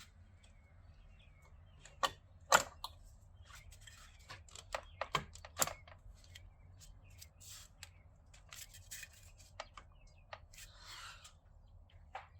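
Scattered clicks and knocks of the top mount intercooler and its charge pipe being set in place and seated by hand, with two sharper knocks about two seconds in, many lighter ticks after, and a short rustle near the end.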